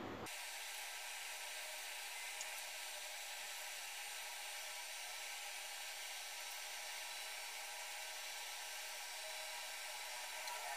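Steady faint hiss of background noise with no distinct sounds in it.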